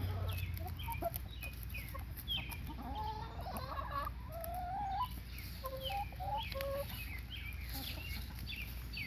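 A flock of chickens clucking and calling while they feed, many short overlapping calls, some rising and some falling in pitch.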